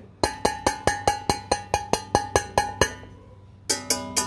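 Stainless steel frying pan (Baccarat iD3 Black Platinum, 30 cm) tapped quickly with a finger, about five light metallic clinks a second, each with a short ring. After a brief pause near the three-second mark the tapping starts again, now on the pan's side, with a fuller ring that hangs on between taps, meant to show the thickness of the pan's wall.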